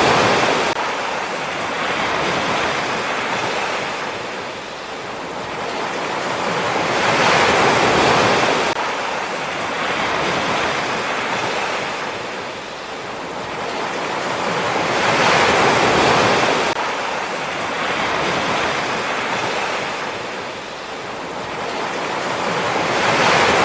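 Sea waves washing ashore in a steady rhythm, the surf swelling and falling back about every eight seconds, three times.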